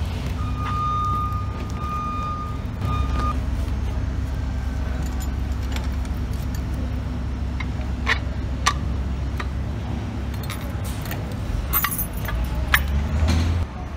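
Sharp metal clicks and clatter as a plumb laser is set onto and fastened to its metal trivet base, over a steady low rumble that drops off suddenly near the end. A steady high tone sounds for about three seconds near the start.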